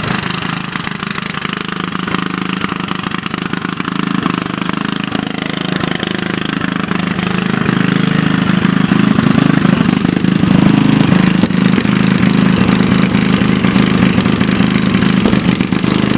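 Small engine of a John Deere riding lawn mower running steadily as it is driven around a course, getting louder about halfway through.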